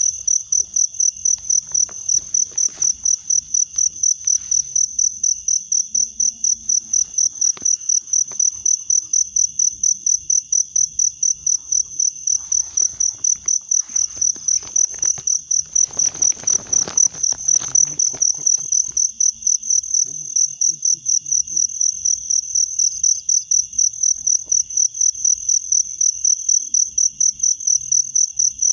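An insect chirping loudly in a steady, even pulse of about three high-pitched chirps a second. A brief burst of rustling noise comes about two-thirds of the way through.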